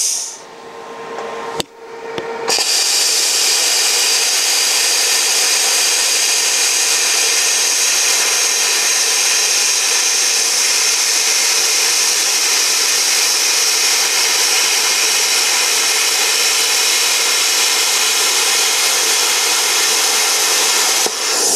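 Plasma cutter cutting through a steel wheel rim: a loud, steady hiss of the arc and air. It breaks off for a moment just after the start, with a click in the pause, then picks up again about two and a half seconds in and holds, dipping briefly near the end.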